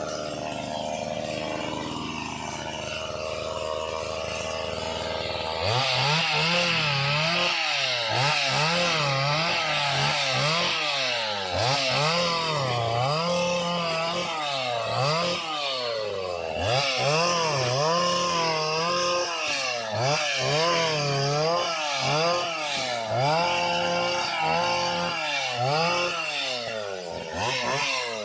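Small engine of a Stihl-powered Cantas oil palm pruner running evenly, then from about six seconds in revved up and down over and over, roughly once a second.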